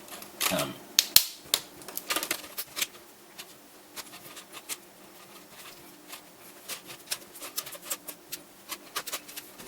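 Plastic screen bezel of a Toshiba Portégé Z935 laptop being pressed and snapped back onto the lid: a run of sharp plastic clicks and taps, busiest in the first few seconds and again near the end.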